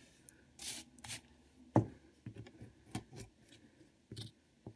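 A wooden paddle scraping and tapping at a block of plaster: a few short scrapes and sharp ticks with pauses between them.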